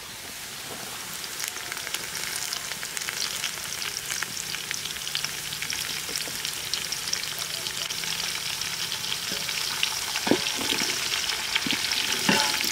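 Whole spices and curry leaves sizzling and crackling in hot oil, the sizzle building over the first couple of seconds. A few short knocks come near the end.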